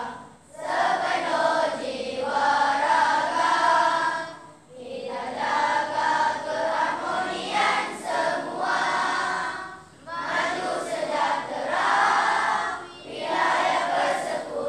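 A large group of children singing together in unison, in phrases a few seconds long with short breaks for breath between them.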